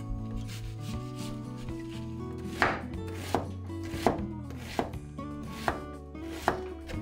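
Chef's knife chopping onion on a wooden cutting board: light rapid strokes at first, then about six sharp knocks of the blade on the board, roughly one every 0.8 s.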